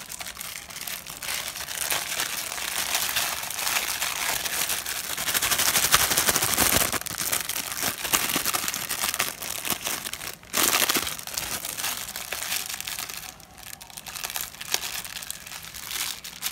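Thin clear plastic wrapper crinkling on and off as a small printed towel is slid back into it and handled, with a brief lull near the end.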